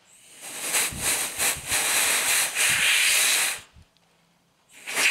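Compressed-air blow gun hissing in blasts as dust is blown off a speedometer dial. One blast lasts about three seconds and cuts off sharply. After a pause of about a second, another blast starts near the end.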